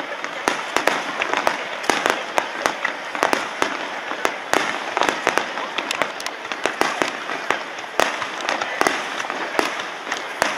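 Aerial fireworks shells bursting in a display: many sharp bangs in quick, irregular succession over a steady noisy wash.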